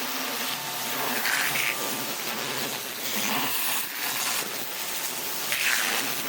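Pressure washer spraying a steady jet of water onto a car's body, a continuous hiss that swells a little now and then as the spray moves over the panels.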